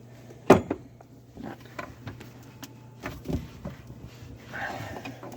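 A few scattered knocks and clunks of hands and tools working a plastic drain pipe loose under a kitchen sink, the loudest about half a second in, over a low steady hum.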